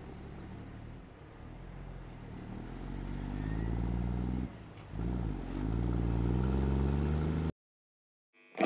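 Truck engine pulling away and accelerating, its pitch climbing, dipping briefly at a gear change about four and a half seconds in, then climbing again. It cuts off suddenly, and after a moment of silence distorted electric-guitar music starts at the very end.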